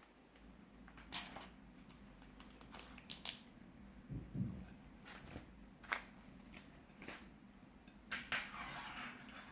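Plastic piping bags being handled: scattered crinkles and sharp clicks, a dull thump about four seconds in, and a longer crinkling rustle near the end.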